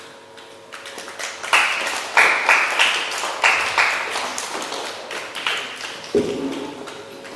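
A small audience applauding: scattered claps that swell into dense clapping for a few seconds, then thin out, with a brief voice near the end.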